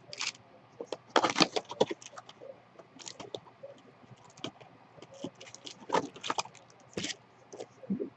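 Crinkling and rustling of trading-card packaging being handled and opened, in irregular bursts, the loudest about a second in.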